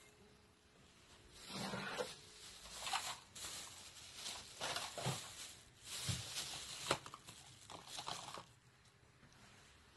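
Plastic bags rustling and crinkling in irregular bursts as they are handled and opened.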